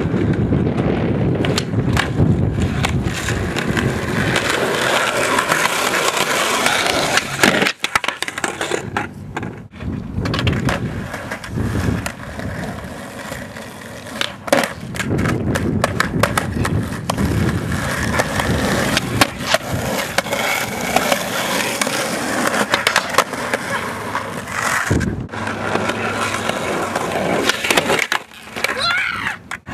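Skateboard wheels rolling on concrete, with repeated sharp clacks of the board being popped, landing and knocking against the ground, and a few sudden short gaps.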